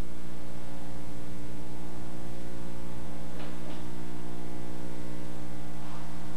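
Steady electrical mains hum with a stack of overtones, unchanging in level throughout.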